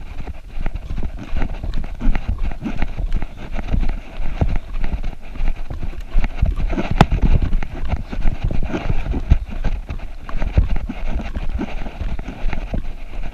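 A trail runner's footsteps thudding quickly and irregularly on a forest dirt trail, over a low rumble from a handheld camera on the move.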